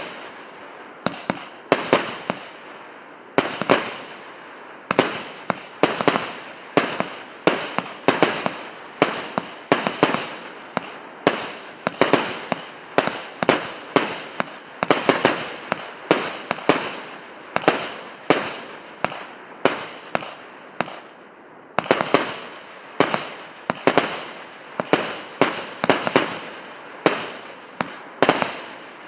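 A 100-shot, 1.2-inch firework cake firing shot after shot, about one to two bangs a second, each with a short fading tail.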